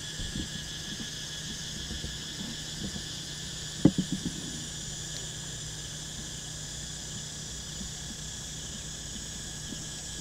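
Steady, high-pitched chorus of insects, crickets by their sound, trilling without a break over a waterlogged field. About four seconds in there is a brief cluster of low thumps.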